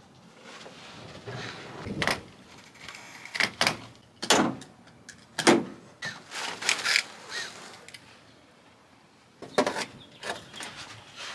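Irregular knocks and clunks with some rustling and scraping, from carpet and plywood being handled and fitted in a truck bed.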